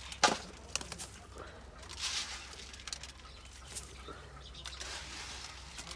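A flock of pigeons feeding on grain scattered on a dirt coop floor: scattered clicks of pecking and shuffling feet, with a few short rustles of wings and grain.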